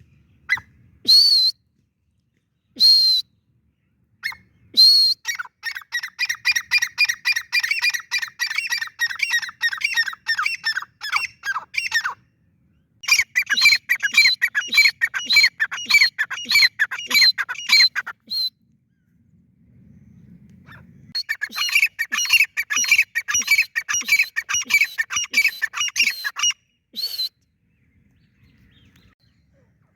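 Francolins (teetar) calling: a few single sharp, rising calls about two seconds apart, then three long runs of rapid repeated notes, several a second, with short pauses between the runs.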